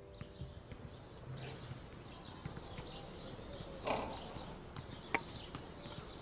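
Basketball bouncing and knocking on an outdoor court: scattered light thumps, with a louder hit about four seconds in and a sharp crack about a second later, over a steady outdoor background.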